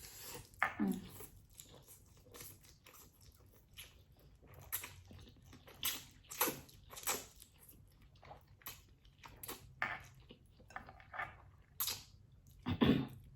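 Close-up chewing of black bean noodles: irregular wet mouth clicks and smacks, with a louder mouth sound near the end.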